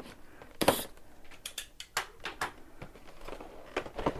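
Makeup-kit packaging being handled: a few short knocks and scrapes, the loudest about two-thirds of a second in, then a run of light clicks.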